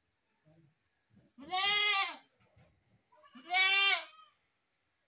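Goat bleating twice, about two seconds apart. Each call lasts under a second and arches up then down in pitch.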